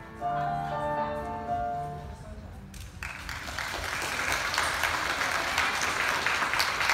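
Piano music over the hall speakers plays for about three seconds and stops, then an audience applauds loudly and steadily.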